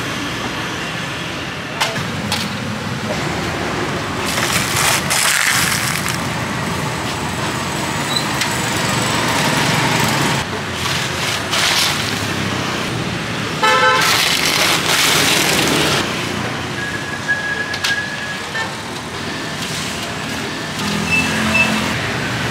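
Busy street traffic running steadily, with a short vehicle horn toot a little past the middle and scattered light knocks.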